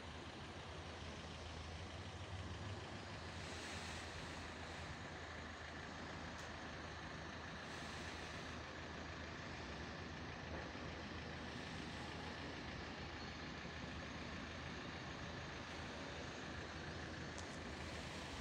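Steady vehicle noise: a low engine hum, strongest in the first few seconds, over a constant hiss.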